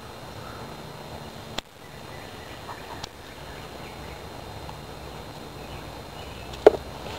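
Scissors snipping stinging nettle stems: three sharp snips, about a second and a half in, about three seconds in, and the loudest near the end, over a steady outdoor background.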